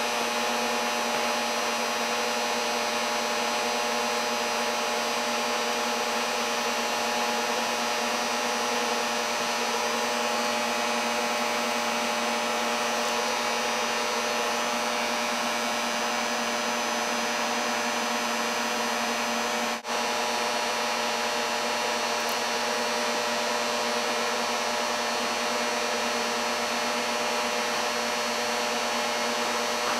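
Homemade induction heater running under load as it heats an iron billet, its cooling fan giving a steady whir with a constant hum underneath. The sound cuts out for an instant about twenty seconds in.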